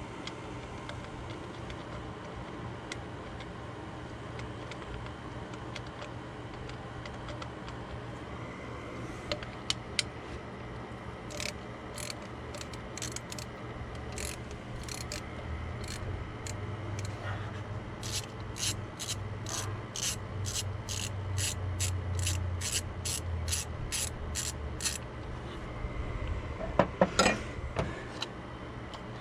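Hand ratchet wrench clicking in runs of about two strokes a second while the bolts on the thermostat water outlet (water neck) are worked loose, followed by a few louder metal knocks near the end.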